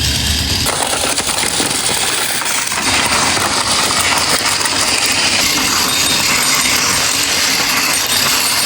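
Battery-powered Plarail toy trains running on plastic track: a dense, continuous rattle of wheels and small motors, which shifts from a low rumble to a higher, busier clatter about a second in.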